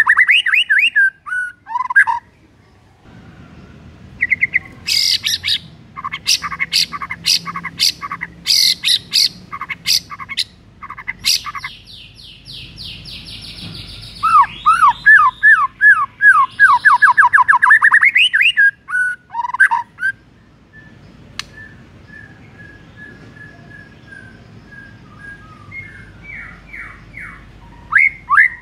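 White-rumped shama singing a varied song: fast runs of sweeping whistled notes, a string of sharp clicking notes and a harsh buzzy rasp. A soft, even series of notes follows partway through, and the loud song comes back near the end.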